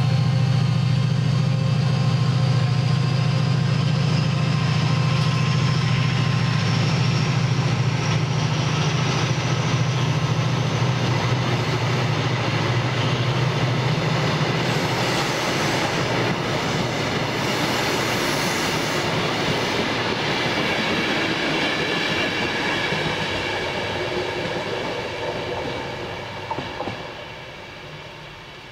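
Class 68 diesel locomotive pulling a rake of Chiltern Mainline coaches away past the platform: a deep engine hum with a faint rising whine for about the first half, then the rattle and rumble of the coaches' wheels on the rails, fading away near the end.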